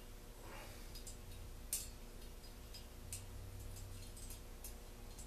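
Scattered small metallic clicks and ticks, the sharpest about two seconds in and another about three seconds in, as a valve spring is worked into a Stihl backpack blower's cylinder head by hand.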